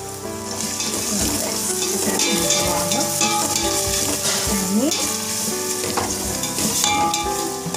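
Shredded cabbage, grated carrot, onion and green capsicum sizzling in hot oil in a steel pan as they are stirred and tossed with a spatula.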